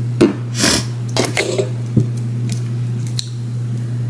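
Hands rubbing and patting at the hair near the microphone: a few short rustles in the first second and a half, then three single soft clicks, over a steady low hum.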